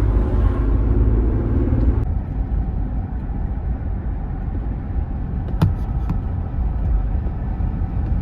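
Car driving on the road: a steady low rumble of engine and tyre noise heard from inside the cabin, with a steady hum in the first two seconds and a single sharp click about five and a half seconds in.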